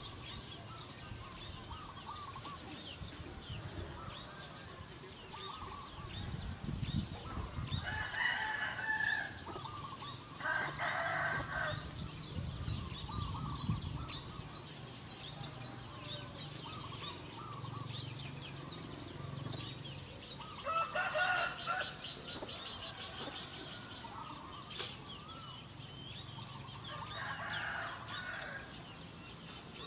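A domestic rooster crowing about four times, each crow lasting a second or so, over constant high-pitched chirping from small birds.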